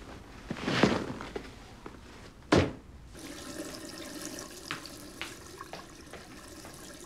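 Liquid running or being poured, heard as a fainter steady sound through the second half. Before it comes a loud rush of noise about a second in and a sharp knock about two and a half seconds in.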